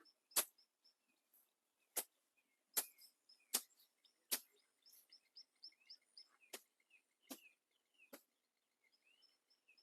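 Faint hammering from nearby construction work: sharp knocks at uneven intervals about a second apart, with small birds chirping.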